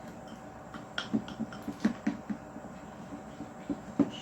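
Spatula stirring slime in a mixing container: irregular soft taps and sticky squelches, bunched about a second in and again near the end.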